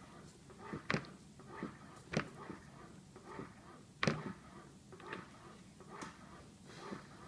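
Toddler eating in a high chair: a few short soft clicks and knocks, the strongest about one, two and four seconds in, over faint room sound.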